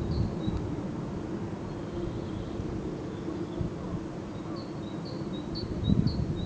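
A small bird singing short, high chirps about twice a second, in a phrase at the start and another from about two thirds of the way in. Beneath it runs a steady low hum from the paper mill, with some low rumbling near the end.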